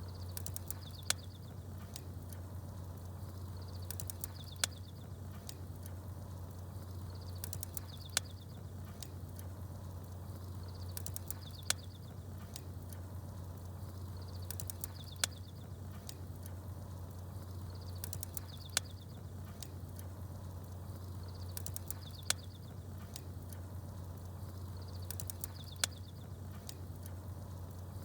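Crackling campfire with small birds chirping: a steady low rumble, a sharp pop of burning wood about every three and a half seconds, and short high chirps between the pops, the whole pattern repeating at an even pace.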